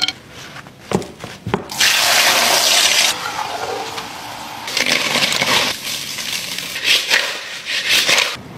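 Water splashing as hands swish sliced raw potatoes and ice cubes around a glass bowl of ice water, with a few sharp clicks about a second in. Later come two shorter bursts of similar noise.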